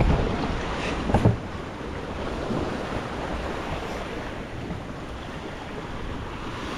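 Sea waves washing onto a sandy beach in a steady wash of surf, with wind on the microphone. Two short low thumps come at the start and about a second in.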